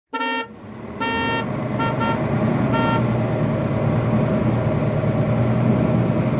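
A vehicle horn toots several short times over a steady low engine rumble that builds about a second in.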